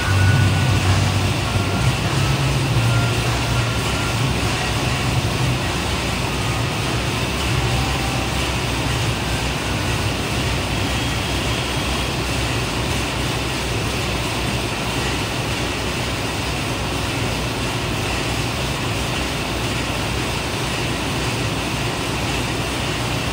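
Air-resistance exercise bike's fan whooshing steadily as it is pedalled.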